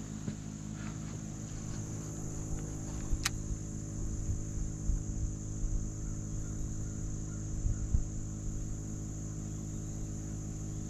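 Steady high-pitched drone of an insect chorus, over a low steady hum, with a single sharp click about three seconds in.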